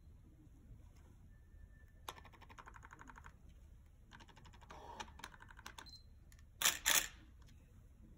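Rapid, fine ticking in two spells as a Nikon AF-S 80-200mm f/2.8D zoom lens on a Nikon SLR is handled, with a short high beep. Near the end the SLR's shutter and mirror fire with two loud clacks in quick succession.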